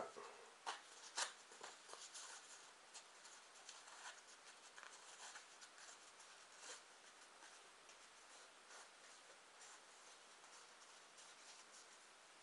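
Faint rustling and scraping of a plain cardboard strip being rolled up tightly by hand, with a few sharper clicks in the first two seconds.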